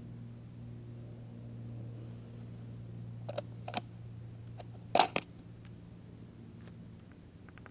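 A juvenile American robin pecking at the gravel close by: a few sharp clicks and taps of its beak, the loudest a quick pair about five seconds in, over a steady low hum.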